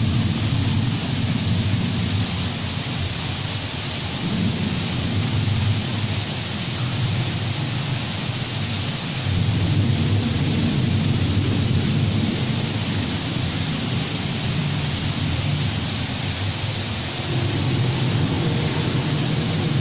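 Steady background noise of an aquarium hall: a low rumble that swells and eases slightly, under an even hiss and a thin, steady high whine.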